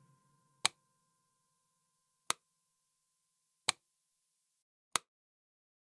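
Four sharp, isolated clicks, spaced about one and a half seconds apart, in otherwise dead silence. Just before the first click, the last faint tail of the music dies away.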